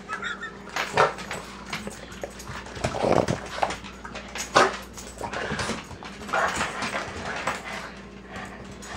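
Boston terriers whining and giving short yelps in a series of brief outbursts, excited and begging for popcorn.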